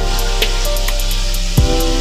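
Background music with a steady beat: quick, evenly spaced ticks over held chords, and a heavy drum hit near the end.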